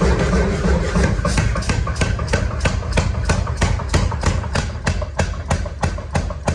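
Rapid, regular hammer blows on steel being forged, about four strikes a second, over a steady low rumble.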